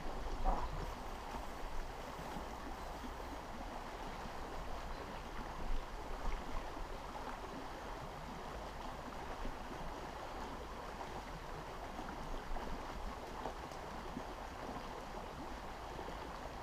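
Steady run of creek water, an even rushing noise with a few faint knocks.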